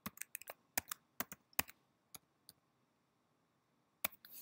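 Keystrokes on a computer keyboard as a password is typed at a login prompt: a quick run of about a dozen key presses, a pause, then two more presses near the end.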